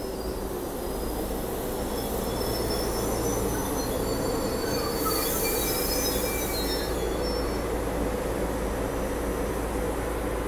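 SEPTA Regional Rail electric train moving along the platform, its wheels squealing in thin, high-pitched tones that come and go over a steady rumble. A brief hiss rises about five seconds in.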